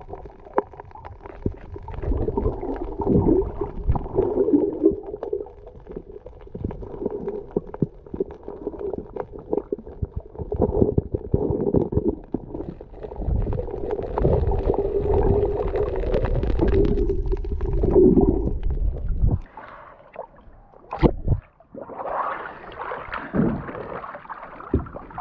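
Muffled underwater gurgling and rumbling heard through a camera's waterproof housing, with a wavering drone. About twenty seconds in the rumble drops away, and near the end, as the camera comes up at the boat's side, water sloshes at the surface.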